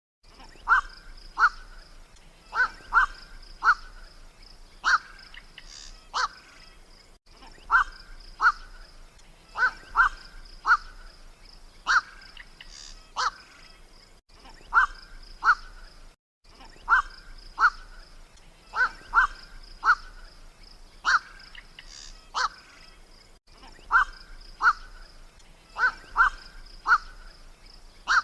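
Black-crowned night heron (kowak-malam) calls played back as a hunting lure: short harsh 'kwok' calls in quick groups of two to four, repeating over and over, with a steady high whine behind them.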